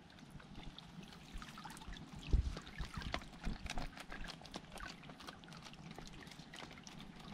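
Water trickling and dripping around a woven bamboo fish trap standing in shallow water, with many small irregular splashes and drips. A single dull knock about two seconds in is the loudest sound.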